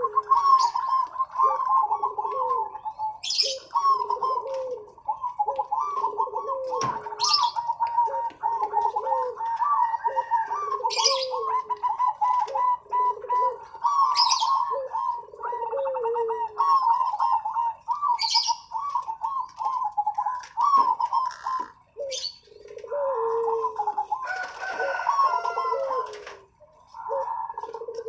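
Several zebra doves (perkutut) cooing: rapid, overlapping runs of rippling coos with lower coo phrases beneath, and a short sharp high chirp about every three to four seconds. The singing thins out briefly near the end.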